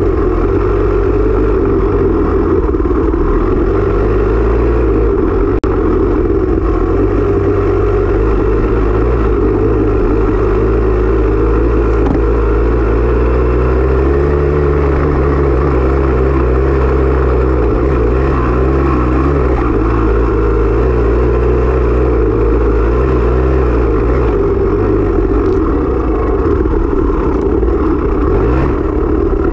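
Off-road dirt bike engine running continuously, its pitch rising and falling as the throttle is worked.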